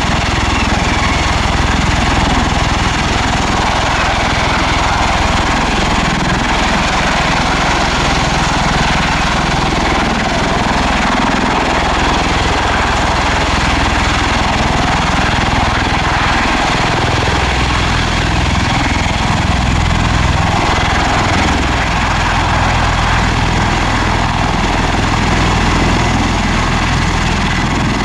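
Bell Boeing MV-22 Osprey tiltrotor hovering in helicopter mode with its nacelles tilted upright: a loud, steady drone of its proprotors and turboshaft engines.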